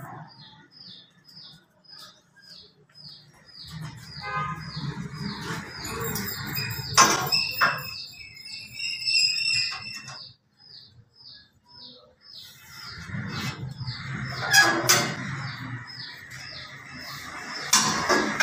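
A bird chirps over and over, about three short high chirps a second, with a second run of calls briefly in the middle. Sharp metal knocks and rattles from the aluminium saw fence being handled and slid along its rails, loudest about halfway and near the end.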